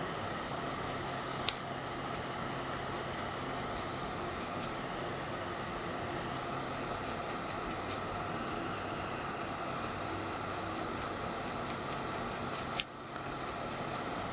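Paintbrush strokes laying black acrylic paint onto a small sanded plastic model part: a quick run of light brushing scratches, about three a second, over a steady background hum. A sharp tap comes about a second and a half in, and a louder one near the end.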